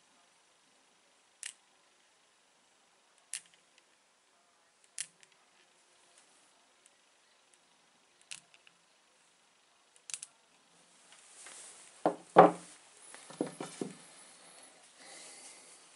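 Small neodymium magnet on a strip clicking sharply against meteorite stones, five separate clicks a second or two apart. Near the end come louder knocks and rustling of stones being handled on the wooden table, the loudest knock about twelve and a half seconds in.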